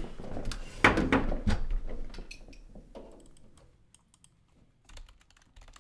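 Typing on a computer keyboard: a cluster of louder knocks and rustling in the first two seconds, then lighter, scattered key clicks.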